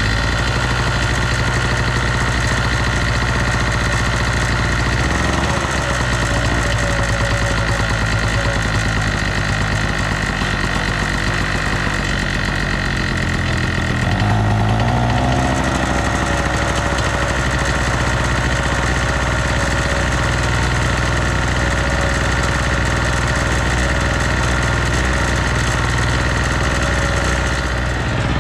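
Chicago Electric 800/900-watt two-stroke portable generator engine running steadily. About halfway through, as a control on its front is worked, its pitch shifts and it gets slightly louder.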